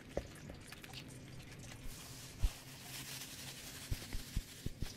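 Plastic bag of fish and breading mix being handled, with faint rustling and several soft low thumps, most of them near the end.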